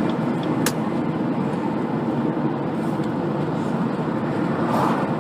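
Steady road and engine noise heard from inside a moving car, with one sharp click about two-thirds of a second in and a brief swell of noise near the end.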